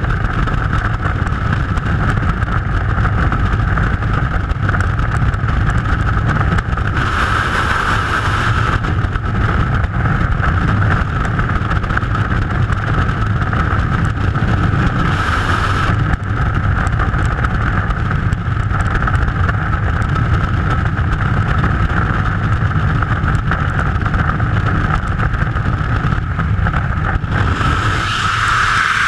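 Freefall wind rushing over a helmet-mounted camera's microphone, a loud, steady roar with a whistling tone above it that swells briefly a few times.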